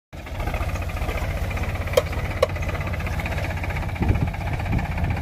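Diesel tractor engine running steadily with an even low pulse as it pulls a seed drill with a log leveler dragged behind on a chain. Two sharp clicks about two seconds in, half a second apart.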